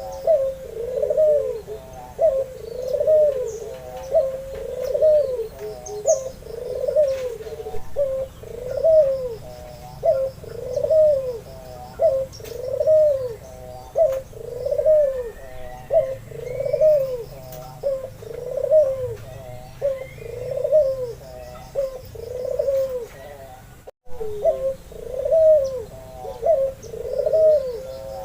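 White albino Barbary dove (puter) cooing steadily, a rhythmic run of low arched coos about once a second, with a brief break about four seconds before the end. Faint high chirps of small birds sound behind it.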